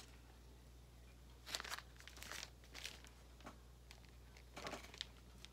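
Faint crinkling rustles of a clear plastic outer sleeve on an LP record as it is handled, a few brief scratchy bursts over a steady low hum.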